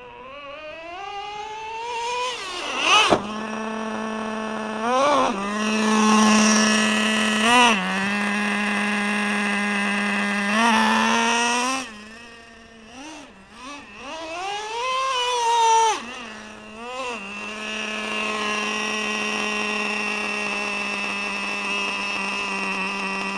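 Traxxas Slayer Pro 4x4's nitro engine whining as it revs up and down several times while the truck is driven, with a sharp knock about three seconds in. From about eighteen seconds in it settles to a steady high-pitched idle.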